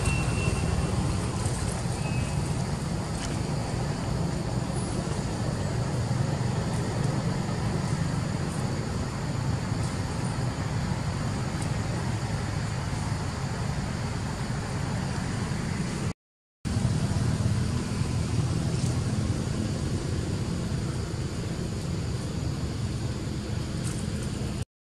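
Steady low outdoor rumble with no distinct event, cutting out completely for a moment twice, about 16 seconds in and just before the end.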